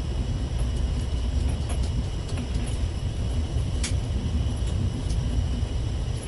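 Steady low machinery rumble with a faint steady high whine over it, and a few light clicks as a fishing rod and reel are handled, the sharpest about four seconds in.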